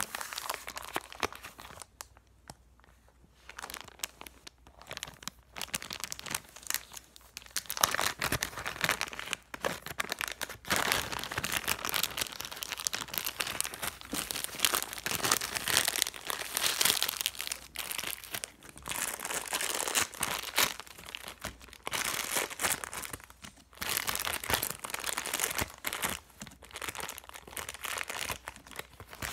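Clear plastic bag crinkling and rustling as orange slime is squeezed and worked inside it and pushed out, in busy crackly stretches with a couple of short lulls.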